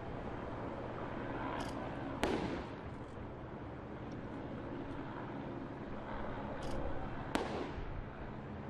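Two distant sharp bangs about five seconds apart, each trailing off in an echo, over a steady outdoor background noise.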